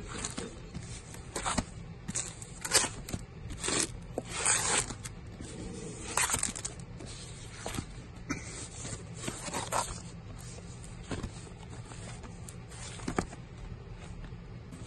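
Vinyl LP records in clear plastic sleeves being flipped through by hand: irregular short swishes and scrapes of plastic and cardboard sliding against each other, a dozen or so, each well under a second.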